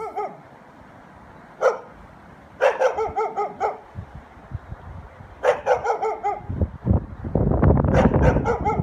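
A dog barking: one bark, then quick runs of five or six barks each. A loud low rumbling noise comes in near the end under the last run of barks.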